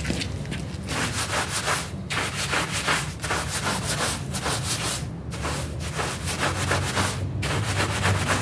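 Stiff-bristled deck brush scrubbing a wet, muddy rug in fast back-and-forth strokes, bristles rasping through the soaked pile, with brief pauses about five and seven seconds in.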